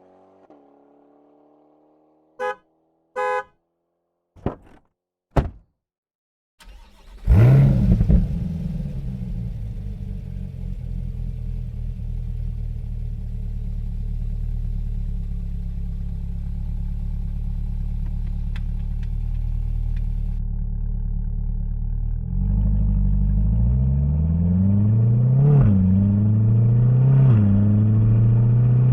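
Two short horn chirps, a few clicks and thunks, then a Chevrolet Corvette C8 Stingray's 6.2-litre V8 with Flowmaster cat-back exhaust starts with a loud flare and settles into a steady idle. In the last few seconds the engine is revved in several quick blips that rise and fall.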